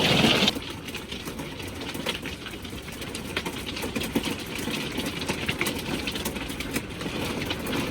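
Hail pelting a hard surface: a dense, rapid patter of small sharp ticks over a rushing hiss. A louder rush of noise cuts off about half a second in.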